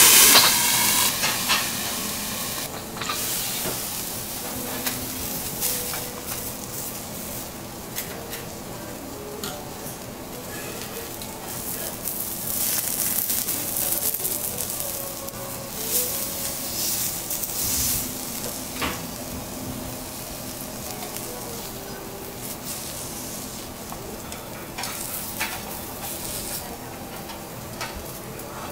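Lobster sizzling on a steel teppanyaki griddle. A loud hiss of steam opens it as the copper dome is lifted and fades within about a second. Scattered sharp clicks and scrapes of a knife and carving fork on the shell and the steel plate follow.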